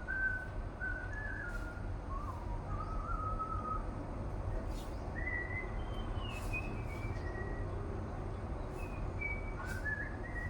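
A person whistling a slow, meandering tune in short phrases with pauses between them, over a steady low rumble.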